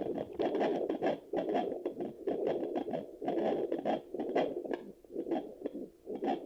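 Fetal Doppler's speaker giving irregular scratchy crackling and whooshing, about two to three bursts a second, as the probe picks up sounds from the stomach.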